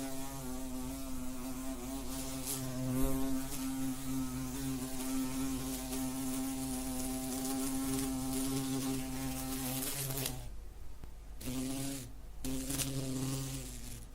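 A wasp buzzing in flight, a steady droning hum whose pitch wavers slightly. The buzz cuts out about ten seconds in, comes back, breaks off briefly again, then resumes near the end.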